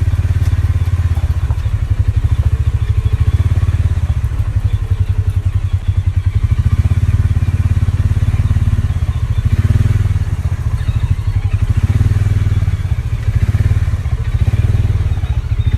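A motor vehicle's engine running steadily at low speed, with a rapid, even low-pitched pulse throughout.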